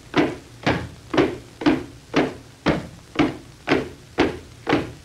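Cartoon sound effect of marching footsteps: even knocks in strict time, about two a second.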